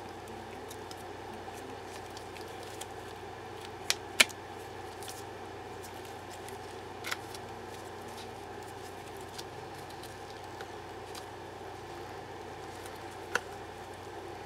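Silicone mold being peeled and flexed off a cast resin skull by gloved hands: soft rubbery handling with a few sharp clicks and snaps, two close together about four seconds in and one near the end, over a steady background hum.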